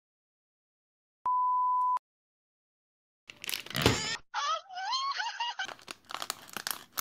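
A single-pitch electronic beep lasting under a second, then the rustling and crinkling of a plastic instant-noodle packet being handled. In the middle of the handling comes a high, wavering, cartoon-like voice for about a second and a half.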